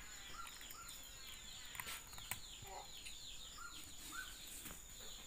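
Faint birds chirping in the background: a steady run of short, falling chirps, with a thin steady high tone underneath.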